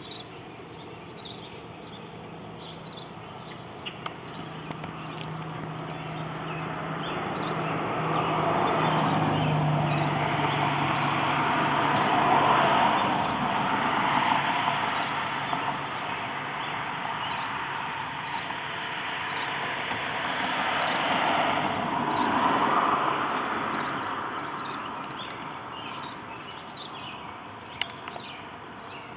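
Short high bird chirps repeated at uneven intervals, while road vehicles pass: a rushing sound swells to its loudest about twelve seconds in and fades, then swells again about twenty-two seconds in.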